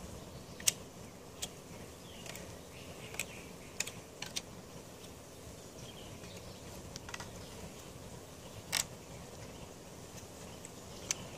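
Pocket knife cutting at the small side growths on a bamboo pole's joints: scattered sharp clicks and cracks of blade on hard bamboo, the loudest one near the start and another about three-quarters of the way through.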